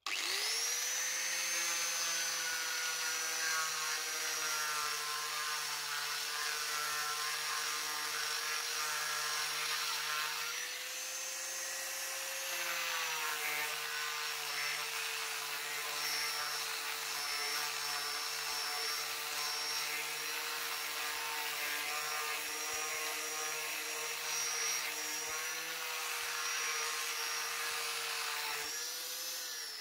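Angle grinder fitted with a sanding disc, sanding a flat wooden board. The motor spins up at the start, runs with a steady whine under the rasp of the abrasive on the wood, rises briefly in pitch a little before halfway, and winds down at the end as it is switched off.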